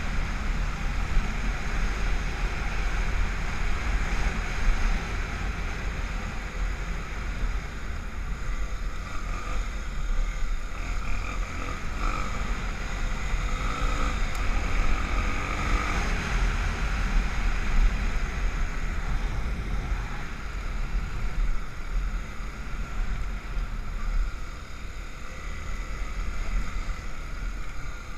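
Honda XR250 Tornado's single-cylinder four-stroke engine running as the bike is ridden on sand, its note swelling and easing, under heavy wind buffeting on the microphone.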